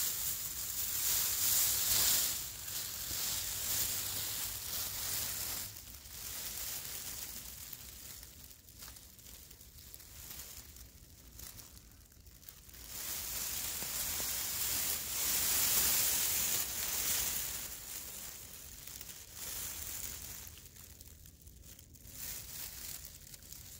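Rustling of plastic tent sheeting, with uneven stretches of louder and softer crinkling hiss.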